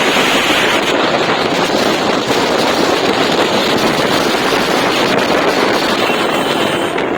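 Steady rushing noise of a jeep on the move: engine and road noise mixed with wind buffeting the microphone.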